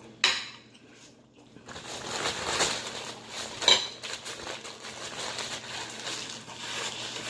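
Close-up crunching and chewing of crispy deep-fried turkey wings, with a sharp click just after the start and a loud crack near the middle.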